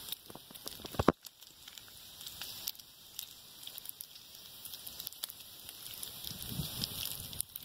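Bacon sizzling in a pan over a small wood-burning camp stove, with a steady hiss, frequent sharp pops of spattering fat and crackling from the fire; one loud pop about a second in.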